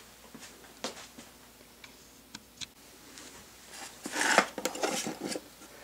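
A few light clicks and knocks, then a small wooden box handled and slid on a steel milling machine table, a scraping, rubbing sound that is loudest about four seconds in.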